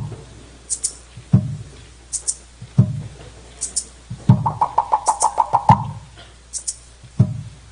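Tahitian dance drumming: a deep drum struck about every second and a half, with a fast roll of clacking wooden slit-drum strokes in the middle and short high clicks between the beats.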